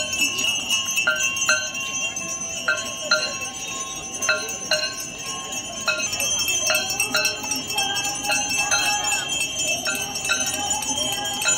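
Metal ritual bells of the Ganga Aarti ringing: repeated sharp strikes, often in pairs, each leaving a sustained ringing tone. Voices sing or chant under the bells.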